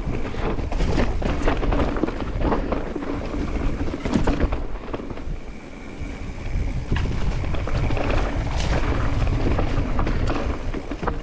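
2023 Transition Smuggler mountain bike riding fast down a loose, dusty dirt trail: tyres crunching over the dirt and the bike rattling over bumps, under a heavy rumble of wind on the microphone. A faint steady high tone is heard for a few seconds in the middle.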